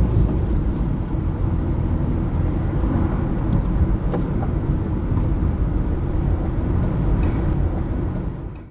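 Car driving on a road: steady low engine and tyre rumble, fading out near the end.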